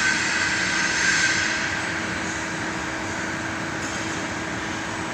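Mazak Multiplex 610 CNC lathe cell with its Flex GL50N gantry loader robot running: a steady mechanical hum with a hissing whine that is loudest for the first second or so, then eases to a steady level.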